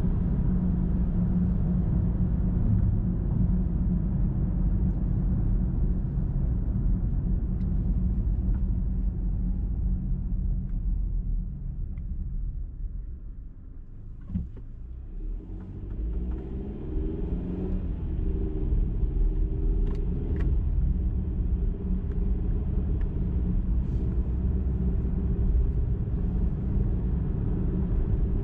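Car driving on a highway: steady low tyre and road rumble. It eases off about halfway through, where there is a single click, then builds again with a wavering engine hum.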